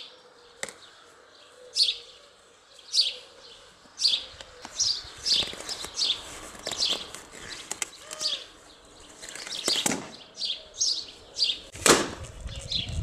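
A bird repeating a short, high chirp that slides downward, about once a second and a little faster midway, with a single sharp crack near the end that is the loudest sound.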